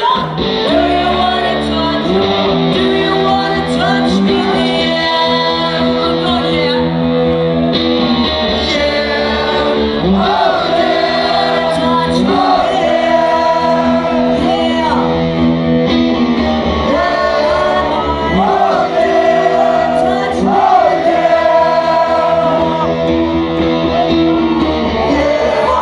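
Live rock performance: a woman singing lead over her own electric guitar, the only instrument. Strummed guitar chords run steadily under the sung melody.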